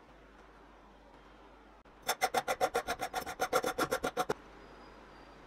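A hand tool, a file or hacksaw, rasping back and forth on a clamped square steel tube: about twenty quick, even strokes over a little more than two seconds, starting about two seconds in and stopping suddenly.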